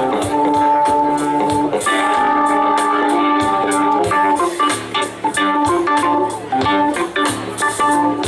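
Live band playing an instrumental passage: electric guitar and Hammond organ over bass and drums, with steady cymbal and drum hits.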